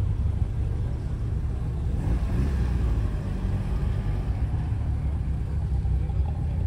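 Car engine running at low revs, a steady low drone as cars drive slowly across the grass.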